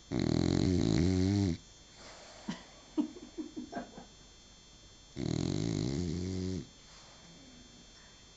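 Dog snoring in its sleep: two long, loud snores about five seconds apart, with a few quieter, shorter sounds in between.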